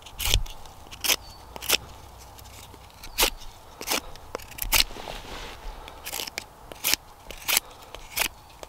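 A fixed-blade knife carving shavings off a thin wooden stick: about ten short, sharp scraping strokes, one roughly every second or less, with a brief pause after the third.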